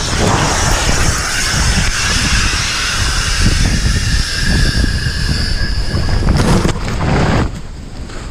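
Avalanche snow rushing and buffeting around a helmet-mounted camera as the skier is carried downslope. A loud hiss starts suddenly and cuts off near the end, over a steady low rumble.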